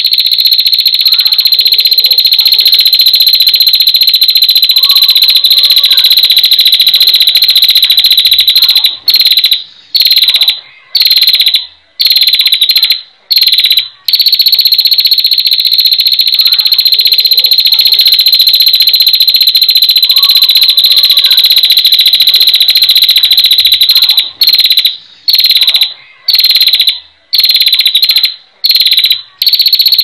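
Female prinia (prenjak) giving its loud, high, buzzing trill (the 'ngetir' call): one unbroken trill lasting about nine seconds, then a string of short bursts with brief pauses, then another trill of about ten seconds, and more short bursts near the end.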